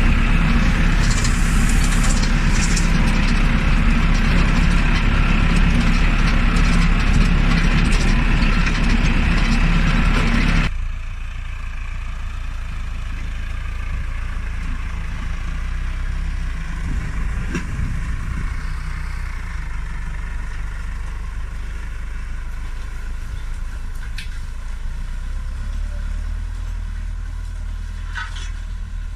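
Tractor engine running steadily while pulling a disc harrow through the field. About ten seconds in the sound drops abruptly to a quieter, steady low engine hum.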